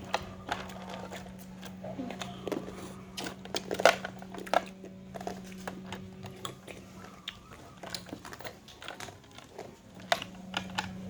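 Ice cubes being crunched between the teeth: irregular sharp cracks and crunches, the loudest about four seconds in.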